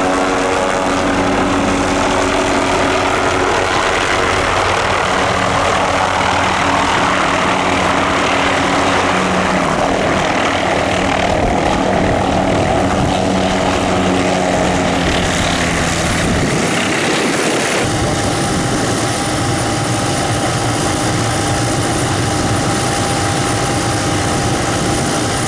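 MD 530F light helicopter running close by, its turbine and rotors making a steady noise. About two-thirds of the way through the sound changes abruptly, and a steady high turbine whine runs on after that.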